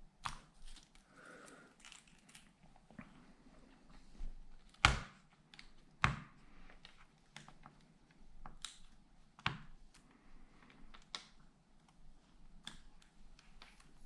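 Hands handling a tablet and its replacement screen parts: scattered light clicks and taps with faint crinkling, and two louder knocks about five and six seconds in.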